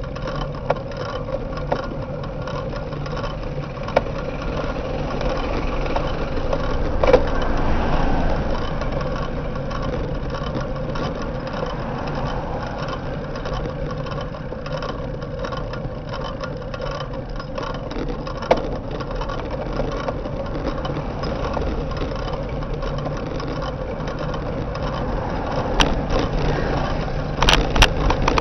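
Steady road and wind noise from a camera riding along a road, with motor traffic nearby. A few sharp knocks, most of them clustered near the end.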